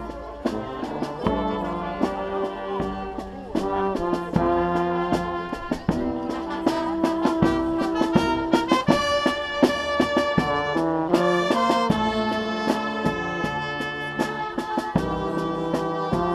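Brass band playing a tune: sousaphone, trumpets and other brass carry held notes over a steady bass-drum beat.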